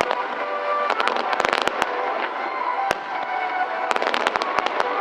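Fireworks bursting with rapid crackling, in two clusters about a second in and near the end, over the display's music.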